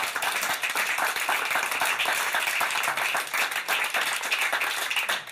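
Studio audience applauding, many hands clapping steadily.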